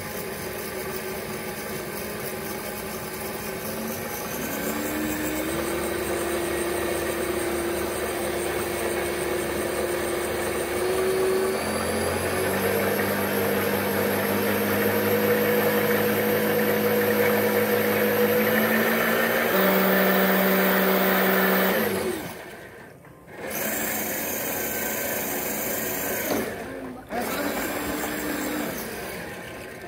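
Electric motor of a homemade RC boat running under way with a whine over water rush, its pitch climbing steadily as the boat speeds up. Near the end it cuts out suddenly for about a second, comes back, and dips once more briefly.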